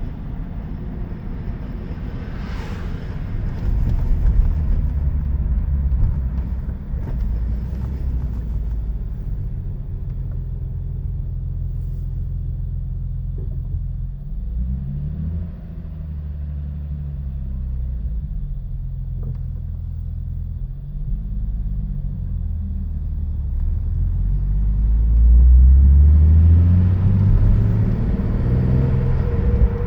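Nissan 370Z's 3.7-litre V6 and drivetrain running on the move, the engine note rising and falling a few times and loudest near the end. Under it is the car's drive noise, a rattle or whine that the owner says does not go away with the clutch pressed, does not follow engine speed, and is mainly heard while the drivetrain is cold.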